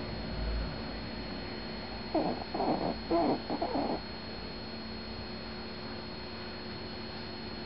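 A Japanese Chin dog, asleep, gives a short run of soft whimpers from about two to four seconds in.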